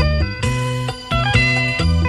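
Thai luk thung music: a plucked-string melody moving in short stepped notes over a steady, repeating bass line.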